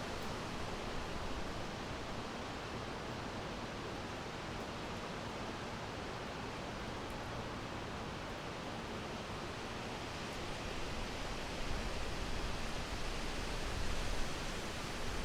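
Summer wind blowing through a forest's leafy trees: a steady rustling rush that picks up in stronger gusts over the last few seconds.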